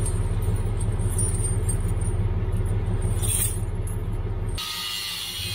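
The Ram tow truck's engine running at idle: a steady low hum. About four and a half seconds in it switches abruptly to a hissier noise with a faint, slowly falling whine.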